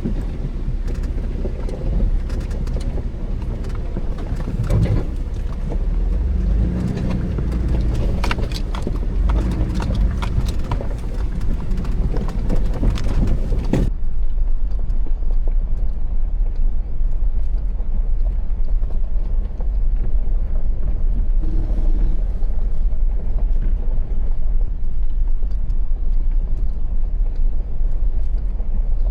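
Mitsubishi Delica 4x4 van driving on a rough gravel logging road: engine and tyre rumble with many sharp rattles and gravel ticks. About halfway through it cuts abruptly to a steadier low rumble.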